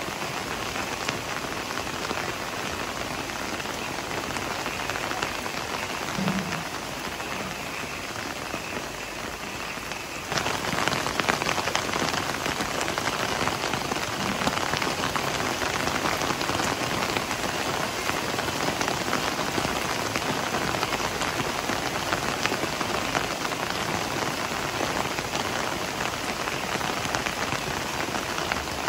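Heavy rain falling steadily, a dense hiss of drops. About ten seconds in it turns suddenly louder and brighter.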